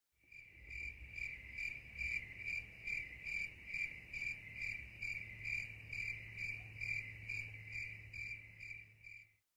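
A cricket chirping at an even pace, about two to three chirps a second, over a low steady hum.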